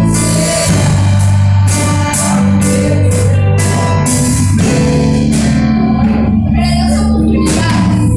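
Music: a band playing a Christian hymn, with guitar and a steady drum beat over sustained bass notes.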